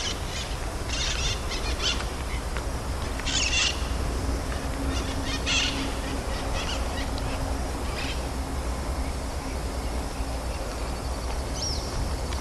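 Birds calling in woodland: scattered short chirping phrases and a single curved whistle near the end, over a steady low rumble.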